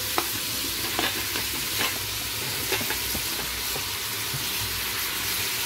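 Vegetables sizzling as they fry in hot ghee in a pressure cooker, a steady hiss with light clicks about once a second as baby corn and potato pieces are dropped in and stirred.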